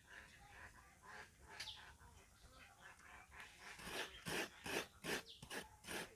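Fresh coconut flesh is scraped out of a half shell on a toothed hand grater: short rasping strokes, about four a second, starting about four seconds in. Before that there are faint bird calls.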